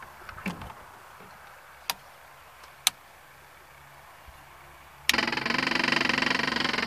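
Two sharp clicks, then an electric fuel pump on a Minimax ultralight switched on about five seconds in, starting suddenly and buzzing steadily.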